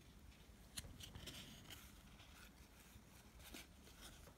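Faint handling sounds of trading cards being flipped through by hand: light rustling and a few soft clicks, scattered and irregular, over near silence.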